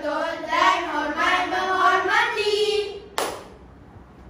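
A children's choir chanting a rhythmic verse in unison, the voices stopping just before one sharp group hand clap about three seconds in.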